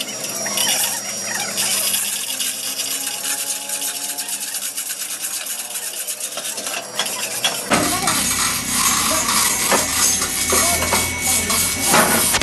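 Metal clinking and scraping of hoist chains and a steel truck axle being handled. About eight seconds in, a low steady rumble starts and the clatter gets louder.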